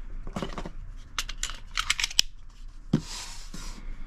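Hands working a Smith & Wesson M&P Shield pistol and its stainless steel magazine. First a quick run of sharp metal and polymer clicks, then a knock and a short sliding rasp about three seconds in.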